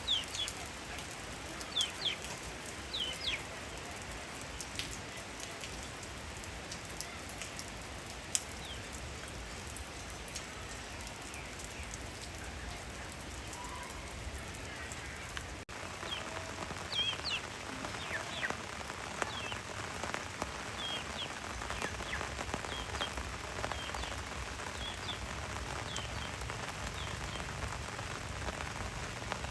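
Steady rain falling, an even hiss, with short high chirps scattered through it, most of them in a run of about one a second in the second half. A brief dropout comes just past halfway, after which the rain is a little louder.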